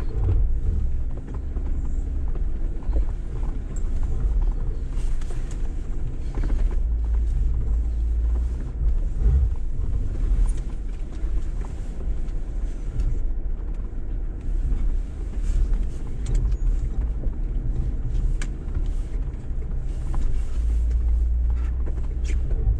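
Jeep Wrangler driving slowly over a snowy off-road trail: a steady low engine and drivetrain rumble, with scattered knocks and clicks.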